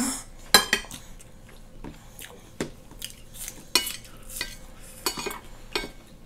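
Metal spoons clinking and scraping against ceramic plates during a meal: irregular sharp clinks and short scrapes, the loudest right at the start.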